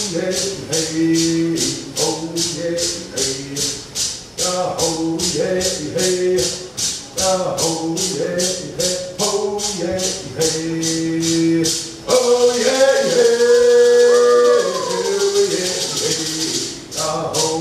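Cherokee social dance song: a shaken rattle keeps a steady beat of about three strokes a second under chanted singing. About two-thirds of the way through, the beat gives way to a continuous rapid shake while the singing holds and slides its notes, then the steady beat comes back near the end.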